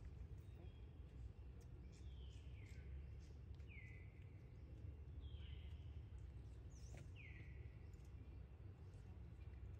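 A bird calling again and again, each call a short whistle sliding down in pitch, coming about every one to two seconds over a faint low rumble.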